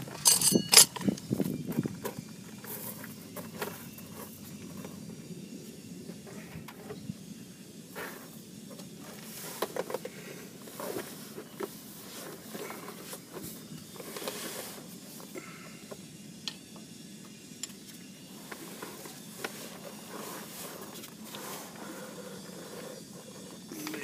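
Crunching steps on gravel in the first couple of seconds. Then scattered light clicks and knocks of hand tools working on the starter under a VW bus.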